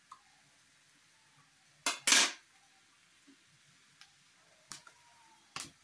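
Steel tongs clinking against a wire-mesh roasting grill as green chillies are turned over: a few sharp metal clinks, the loudest pair about two seconds in and lighter ones near the end.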